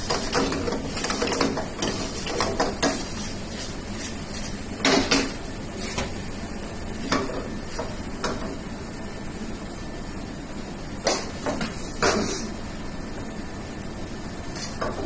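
Steel ladle scraping and knocking against a pan while stirring thick dal: quick clinks during the first three seconds, then single knocks every second or so, over a steady background hiss.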